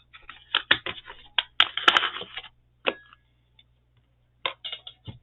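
Craft supplies being handled and sorted: a run of rustles, crinkles and small clicks, a near-silent pause of over a second in the middle, then a few more clicks near the end.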